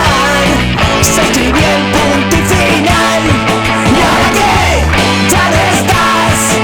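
A loud rock song by a band, with a steady beat and a wavering lead melody over sustained low notes.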